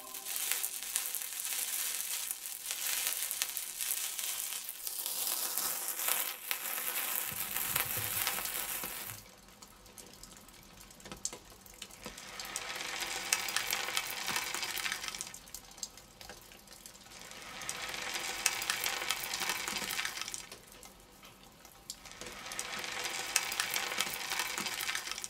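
Potato slices sizzling in hot frying oil: a steady hiss with many small pops, loud for the first nine seconds, then falling away and coming back in three slow swells.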